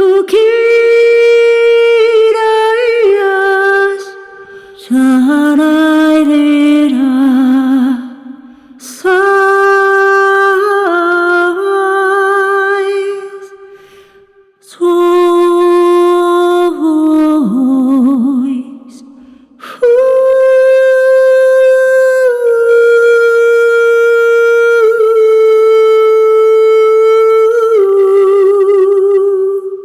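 Notes played on Zero-G's Ethera Gold Atlantis Kontakt sample library: held, voice-like pitched tones with vibrato that slide from one pitch to the next, in about five phrases separated by short pauses.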